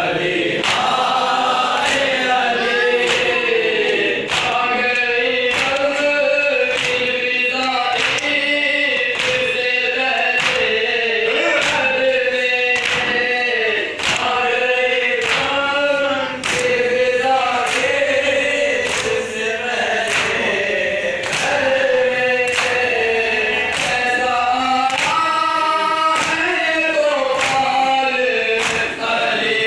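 A group of men chanting a Shia noha (lament) in chorus, kept in time by rhythmic matam: open-handed slaps on the chest, a little more than one a second.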